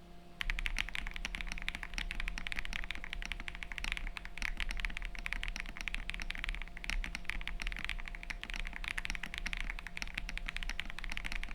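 Fast, continuous typing on a freshly built Akko 5075B VIA mechanical keyboard with Akko x HMX Cilantro light tactile switches and PrintStream keycaps, the rapid keystroke clacks starting about half a second in.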